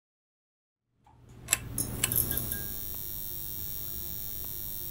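Intro sound effect under an animated title card. After about a second of silence it comes in with a handful of sharp, bright ticks, then settles into a steady low hum with high ringing tones.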